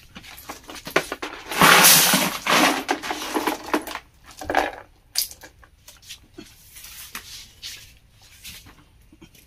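Freshwater snail shells clinking and rattling against one another and the plastic bucket as they are handled in a bamboo basket, with a louder rush of rattling about two seconds in and scattered clicks after.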